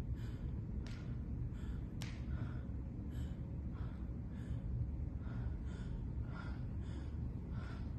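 An actor gasping for breath over and over in a staged scene of distress, about two breaths a second, over a steady low room rumble. Two sharp clicks come in the first two seconds.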